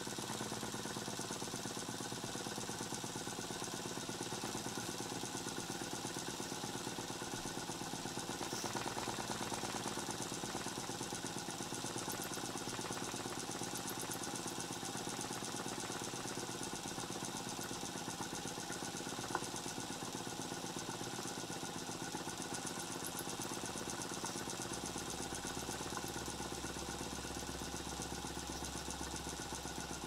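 Stuart Sirius twin-cylinder cast-iron model steam engine running steadily under live steam, with the gas burner firing the boiler adding a steady hiss; a low hum joins in the last few seconds.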